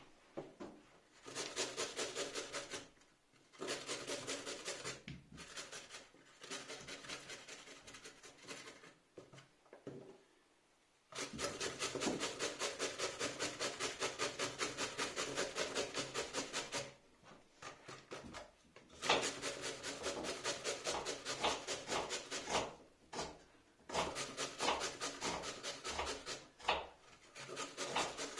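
Raw pumpkin being grated on a coarse hand grater: quick rasping strokes, about five a second, in runs broken by short pauses, the longest about ten seconds in.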